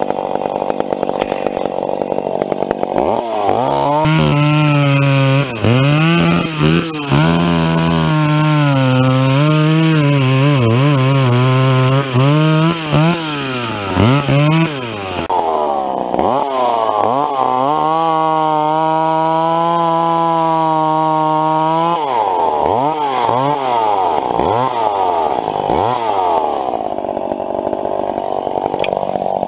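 A two-stroke McCulloch chainsaw idles, then is throttled up about three seconds in and held at full revs, its pitch sagging and recovering as it cuts through wood. It drops back toward idle around halfway, makes a second cut of about six seconds, then blips the throttle a few times and settles back to idle.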